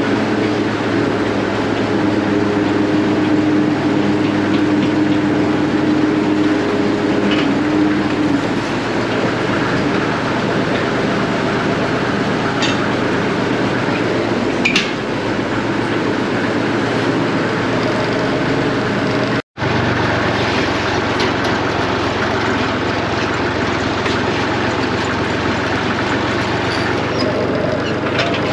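Tractor engine running while a rear-mounted yard scraper drags along a concrete shed floor, with metal rattling and clinking from the scraper. A split-second gap about two-thirds through.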